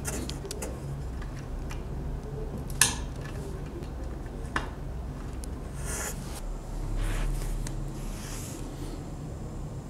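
Small clicks and rubbing as insulated wire connectors are pushed by hand onto a car speaker's terminal tabs, with sharper clicks about three seconds and four and a half seconds in, over a steady low hum.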